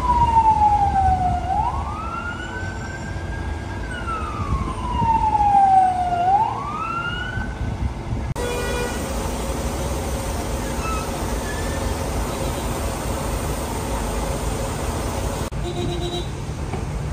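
Ambulance siren wailing: twice it falls slowly in pitch and then sweeps quickly back up. It stops about eight seconds in, leaving steady street and traffic noise.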